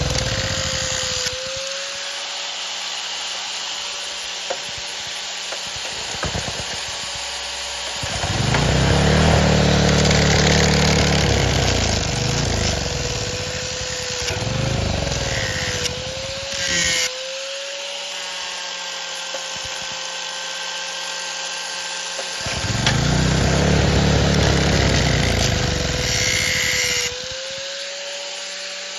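A power tool running steadily with a high whine that dips in pitch several times, as if bogging under load, and three longer spells of louder low rumbling.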